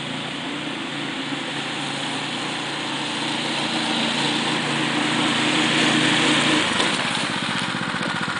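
Dune buggy's small engine running steadily as the buggy drives up, growing louder as it nears. About two-thirds of the way in, the engine note drops into a slower pulsing.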